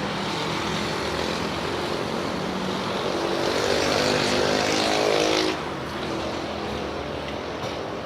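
Electric commuter train running alongside the platform, a loud rush of wheel and motor noise with a whine that falls in pitch as it slows, dropping off sharply about five and a half seconds in.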